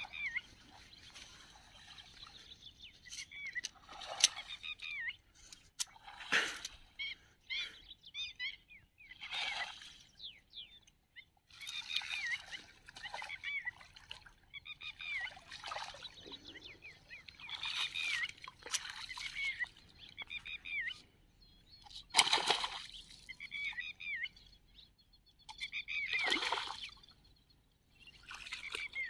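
A hooked giant snakehead splashing and thrashing through shallow, weed-choked water as it is reeled in, in a series of separate splashes; the loudest come a little past two-thirds of the way through and near the end. Birds chirp repeatedly in the background.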